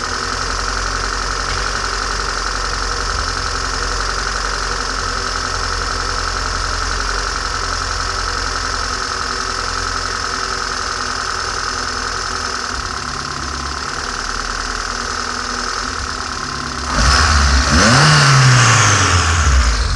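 1999 Peugeot 106's 1.1-litre TU1 four-cylinder petrol engine idling steadily, with tappet chatter and a faint whine that grows as the engine gets hot, which the owner thinks could be the cambelt. About three seconds before the end the engine is revved once and the revs fall back towards idle.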